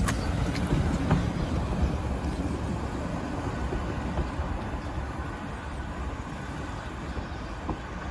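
Passenger coaches of a steam-hauled train rolling away along the track: a low rumble that slowly fades, with a few sharp clicks in the first second or so.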